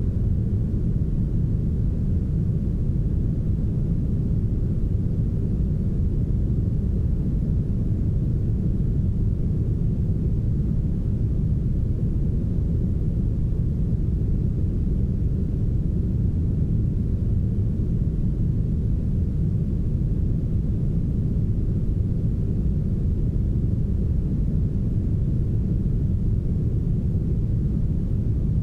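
Soft, heavily smoothed brown noise: a steady, deep, muffled hiss with almost no high end, unchanging throughout.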